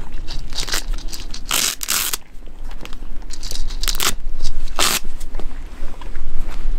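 A cat crunching dry kibble. Over it come loud rips of Velcro as the hook-and-loop straps of its harness are pulled open: a long one about a second and a half in, then two shorter ones about four and five seconds in.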